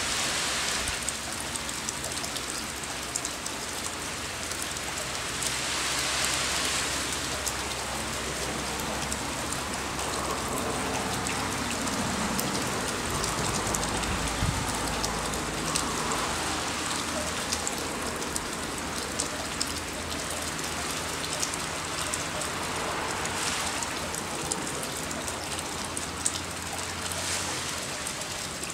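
Steady rain falling, an even hiss peppered with the ticks of individual drops striking close by. A low rumble swells for a few seconds about halfway through.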